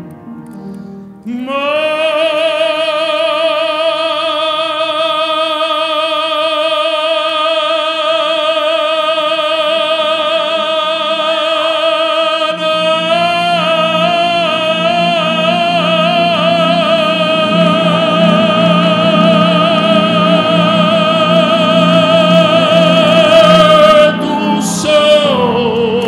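Operatic baritone holding one very long note with wide vibrato for over twenty seconds. Fuller accompaniment joins about halfway through, and near the end the note breaks off into a lower phrase.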